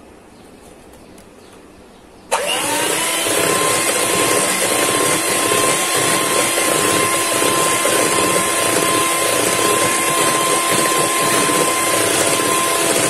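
Electric hand mixer switched on about two seconds in, its motor spinning up and then running steadily at high speed as the beaters whip double cream and caster sugar.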